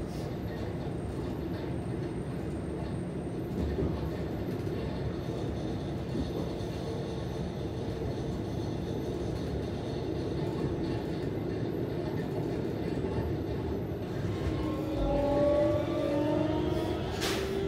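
Cabin running noise of a Keikyu 1000 series electric train with Siemens IGBT-VVVF traction: a steady rumble of wheels on rail. About three-quarters of the way in, the traction motors' whine rises in pitch and grows louder, with a single sharp knock near the end.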